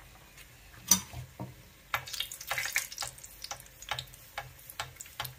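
Potato chops in besan batter frying in hot oil in a small frying pan: sizzling with irregular sharp pops and crackles, the loudest about a second in and a dense run of them around the middle. A metal spoon works in the pan, basting the chops with oil.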